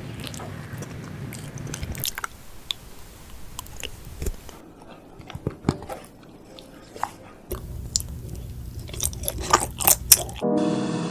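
Close-miked biting and chewing of chocolate mochi, with crisp crunches and wet clicks. Background music comes in near the end.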